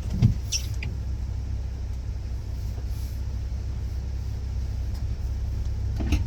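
Vehicle engine idling, a steady low rumble heard from inside the cabin, with a knock about a quarter second in, a few light clicks just after it, and another brief knock near the end.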